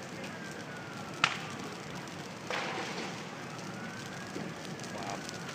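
A burning van's fire crackling steadily, with one sharp pop about a second in and a brief louder rush of crackling around halfway. A faint siren wails slowly up and down behind it.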